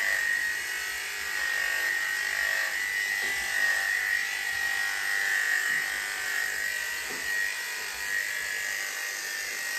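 Wahl KM-series electric dog clippers running steadily through a terrier's coat, a constant high-pitched hum as the hair is shaved short in a pre-clip.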